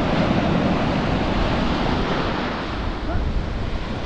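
Surf breaking and washing up a beach around the feet, with wind on the microphone.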